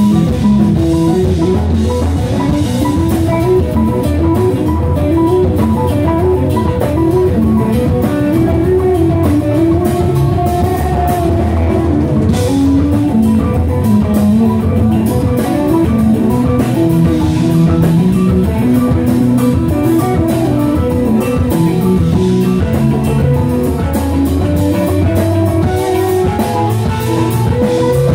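Live band playing, with guitar lines over a drum kit and keyboards, loud and continuous.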